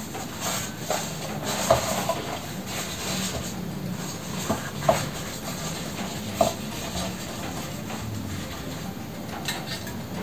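Thin filo pastry sheets rustling and crinkling as they are pressed and folded into a baking dish, with three short sharp taps in the middle.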